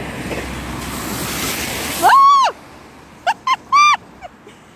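Rushing spray of a vehicle driving through a flooded stretch of road. It rises for about two seconds and cuts off sharply, and is followed by several short, high-pitched cries.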